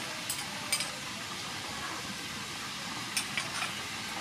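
Chili sauce sizzling in hot oil in a frying pan, a steady hiss, with a few light clicks of a metal spoon scraping against the bowl.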